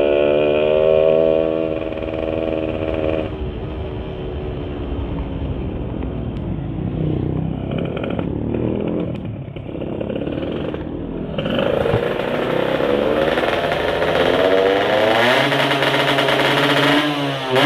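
Yamaha Sigma two-stroke motorcycle engine, fitted with a 30 mm UMA carburettor and a 'kodok' intake manifold, revving: its note climbs for the first few seconds, runs rougher for a while, then climbs again from about twelve seconds in and settles into a steady note near the end.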